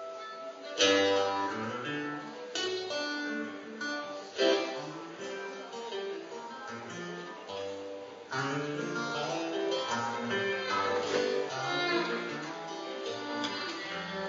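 Acoustic guitar strummed in chords, with a fiddle playing a melody over it: an instrumental passage of a folk song played live.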